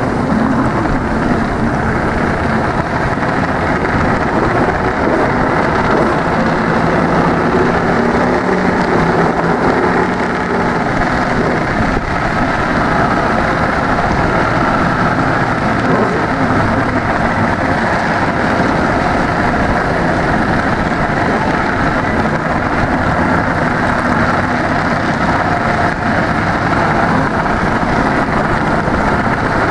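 Junior dragsters' single-cylinder engines idling steadily at the starting line, a continuous loud engine drone with a slightly wavering pitch in the first ten seconds or so.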